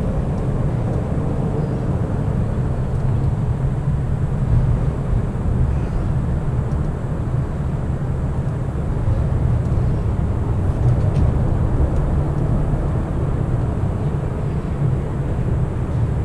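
Steady low rumble with no clear tone, loud throughout.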